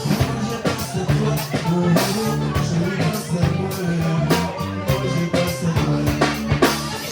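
Live band playing music: a bass line stepping between notes under regular drum hits.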